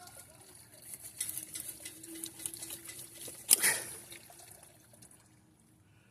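Water trickling and dribbling as the pond's filter pump is shut down, dying away near the end, with one short loud noise about three and a half seconds in.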